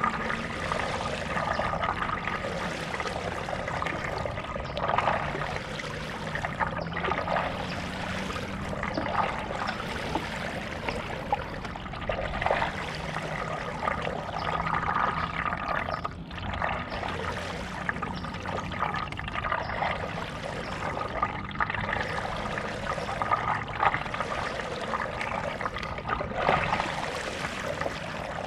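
Stand-up paddle strokes in lake water: splashing and trickling that swell every few seconds as the blade dips and pulls through.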